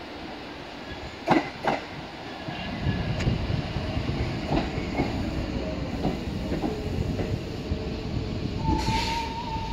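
R46 subway train pulling into the station on the near track. Two sharp clacks come about a second and a half in, then a rising rumble of wheels on rail with scattered clicks as the cars pass close. A steady high-pitched tone starts near the end as the train slows.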